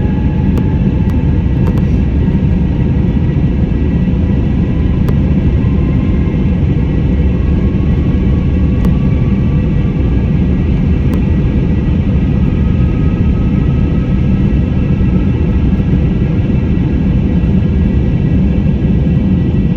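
Jet airliner's engines heard from inside the cabin during take-off: a loud, steady rumble with a faint whine that climbs slowly in pitch.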